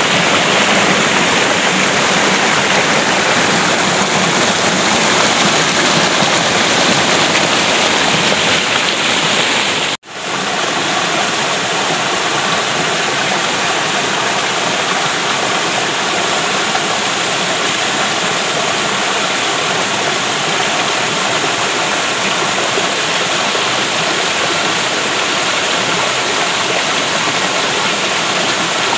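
Shallow rocky stream rushing and splashing over boulders in small cascades, a steady loud rush of water. It breaks off for a split second about a third of the way in, then resumes with a slightly different tone.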